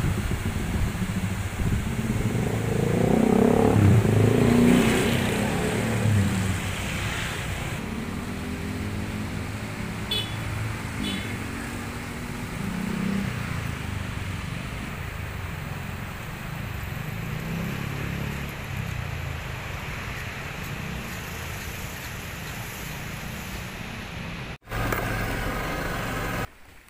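Road traffic: motor vehicles passing, their engine noise swelling loudest in the first few seconds and then running steadier. The sound breaks off abruptly near the end.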